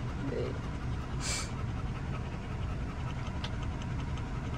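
Car engine running with a steady low rumble inside the cabin, with a dog panting in the heat. A short hiss sounds about a second in.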